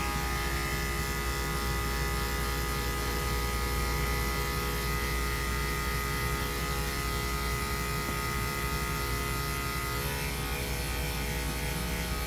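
Corded electric dog-grooming clippers running with a steady hum as they shave a Maltese puppy's matted coat.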